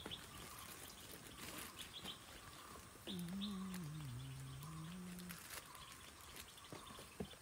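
Small birds chirping now and then over a faint steady outdoor background. About three seconds in comes a low, drawn-out call that wavers in pitch and lasts about two seconds; it is the loudest sound here.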